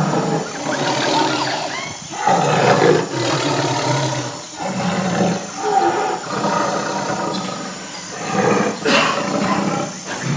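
A large animal's repeated deep calls, about five in a row, each a second or two long with short breaks between, over faint bird or insect chirping.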